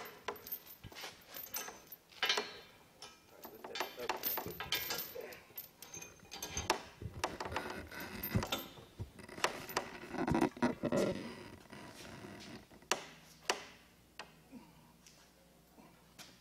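The chain of a long-handled chain wrench clinking and rattling against a steel drill stem as it is worked to tighten the stem joints, with scattered sharp metal clicks and a denser stretch of rattling about ten seconds in.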